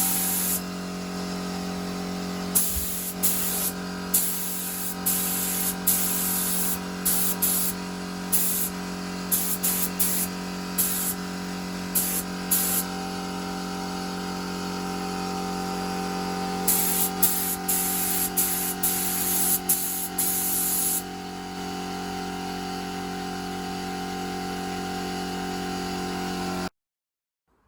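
Paint being sprayed in many short hissing bursts over a steady motor hum, laying the first top coat of paint on a Land Rover body panel. The sound cuts off abruptly about a second before the end.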